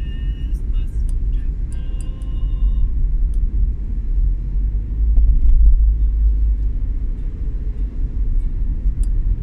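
Steady low rumble of a vehicle travelling on the road.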